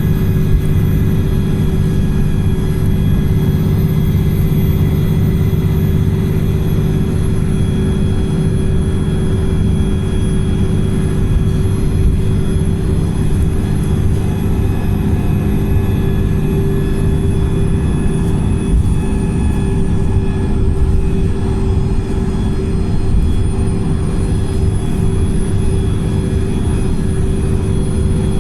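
Wright Pulsar single-decker bus heard from inside the cabin: a loud, even engine drone and road rumble, held at steady revs with no change of gear.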